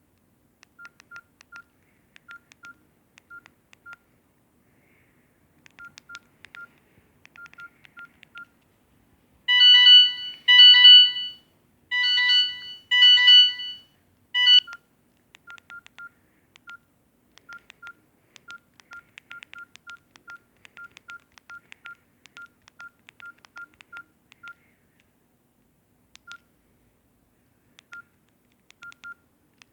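Samsung GT-E1200i mobile phone's keypad beeps: short, single electronic beeps at one pitch in irregular runs as keys are pressed. About ten seconds in comes a louder stretch of electronic bleeps in about five pulses, lasting some five seconds.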